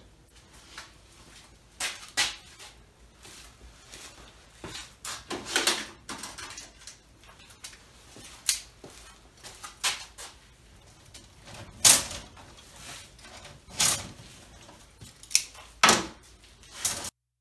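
Tools and metal being handled at a workbench: irregular sharp clicks and knocks, about a dozen, over a quiet background.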